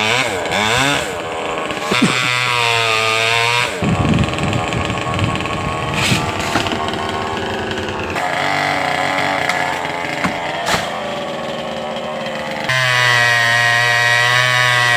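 Two-stroke chainsaw cutting a tree, revving hard and dropping back in pitch several times, with a rougher, lower-pitched stretch in the middle and a long steady high-revving pull near the end.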